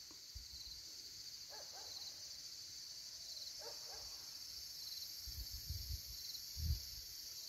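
Steady high-pitched chorus of crickets and other insects chirping. Two faint short calls in the first half, and a few low rumbles near the end.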